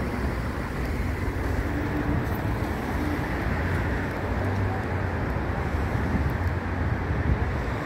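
Steady city road-traffic noise: a continuous low rumble of car engines and tyres.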